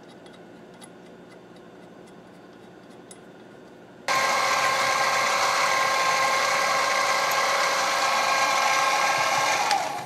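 A few faint small clicks over quiet room noise, then about four seconds in a drill press starts cutting into the steel rifle receiver with a loud, steady, high whine. The whine stops suddenly just before the end.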